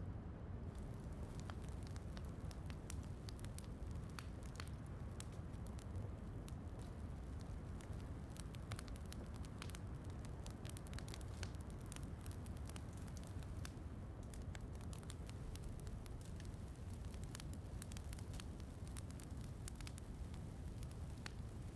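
Wood fire in a fireplace crackling, with frequent small irregular pops and snaps over a steady low rumble of rain.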